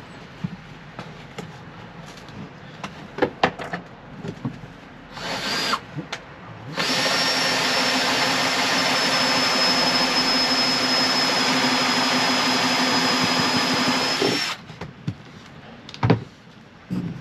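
A power tool runs in a short burst, then runs steadily for about eight seconds with a constant high whine and stops abruptly. Light clicks and knocks of handling come before and after.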